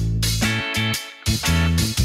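Instrumental background music with a steady rhythm and a bass line.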